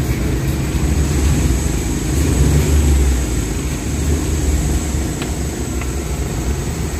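Suzuki K6A three-cylinder engine idling steadily, heard from inside the cabin, its low running swelling slightly about two to three seconds in. The engine has a loose, worn timing chain that the mechanic says stays noisy, with a cricket-like chirping, and is due for replacement.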